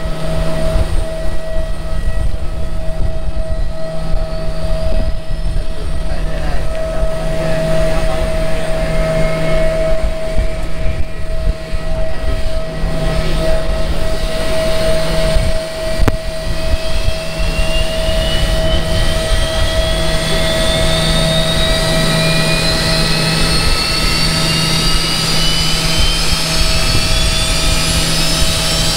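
Jet aircraft engines running with a steady whine and a lower hum. In the second half, higher whines rise slowly in pitch.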